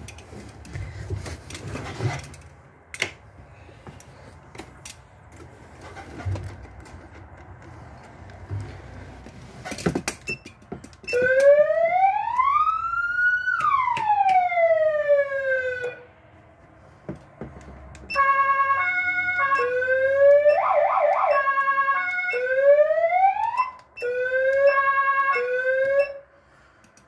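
Fire truck siren worked through its modes from the cab's control panel. First a single wail rises and falls, then, after a short gap, comes a stepped two-tone pattern, a fast warble and a few short rising whoops, each mode cutting off abruptly. Before the siren, a few clicks and knocks from the controls.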